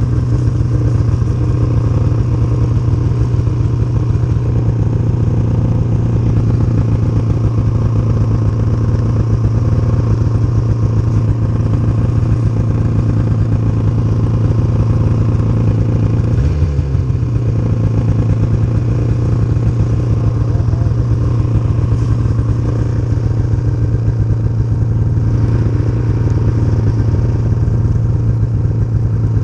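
Snowmobile engine running at a steady speed, with a brief change in pitch a little past halfway.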